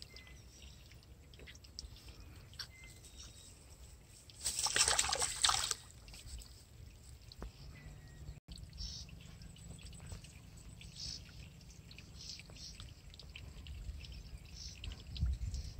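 Water splashing once a few seconds in, for about a second and a half, from a caught rohu fish in a wet mesh net; light rustling and small clicks of the net and grass around it.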